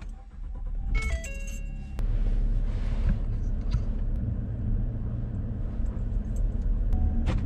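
Ford F-150 pickup being started: a short run of dashboard chime tones, then about two seconds in the engine catches and runs with a steady low rumble as the truck reverses. A click and a steady beep tone come near the end.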